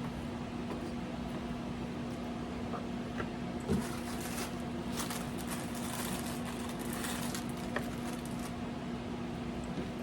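Quiet eating sounds, chewing and light scraping, over a steady low hum, with a small knock about four seconds in.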